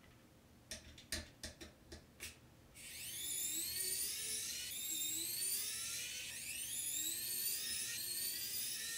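Pen-style electric precision screwdriver backing out small T5 Torx screws. A few light clicks come first, then from about three seconds in a high motor whine whose pitch keeps sweeping upward, over and over.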